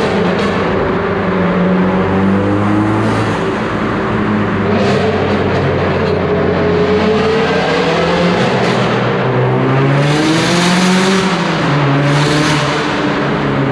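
Turbocharged 2.3-litre four-cylinder Mazdaspeed3 running through a full CPE exhaust with a catless downpipe. The engine note rises and falls several times as the revs change. Near the end come two bursts of rushing, hissing noise.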